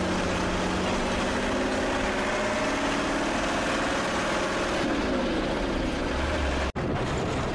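Bus engine running under way on a dirt road, with steady road noise heard from inside the cabin; the engine pitch shifts about five seconds in. The sound briefly cuts out near the end.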